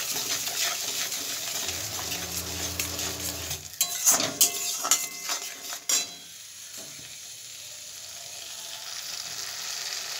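Spice paste sizzling in mustard oil in a metal kadai while it is fried down, stirred with a steel spatula that scrapes and clicks against the pan. The stirring stops about six seconds in, leaving a quieter steady sizzle.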